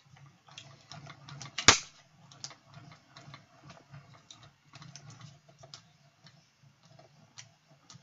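Hand-cranked Stampin' Up! mini cut and emboss machine being turned, feeding a die-cutting sandwich through its rollers. The crank and gears give a run of small irregular clicks over a faint low rumble, with one sharp loud click about two seconds in.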